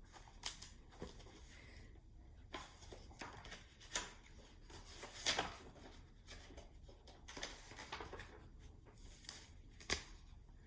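Faint rustling of paper pages and soft taps as a picture book is handled and its pages turned, in a dozen or so short, scattered swishes.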